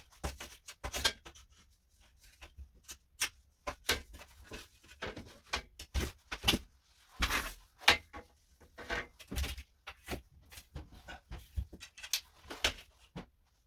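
An irregular run of short knocks, bangs and clatters from demolition work on the house, with the loudest impact about eight seconds in.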